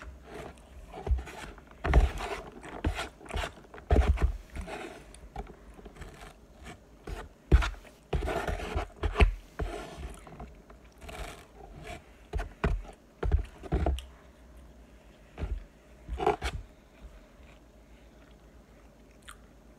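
Close-up eating sounds: a fork scraping and clicking against a takeout container, mixed with bites of a fried sambusa, in short irregular scrapes that die away about three seconds before the end.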